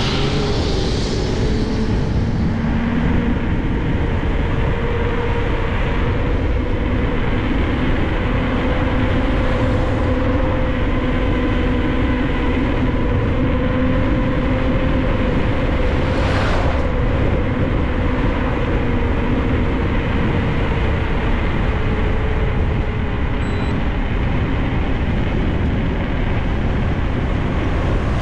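Steady rush of wind and rolling noise from a mountain bike moving fast, with a steady humming tone through most of it and a brief hiss about 16 seconds in.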